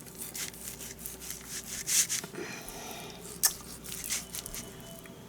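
A knife slicing through raw chicken breast on a cutting board: soft wet, squishy cutting sounds broken by irregular small knocks and scrapes, the sharpest about two seconds in and again past the three-second mark.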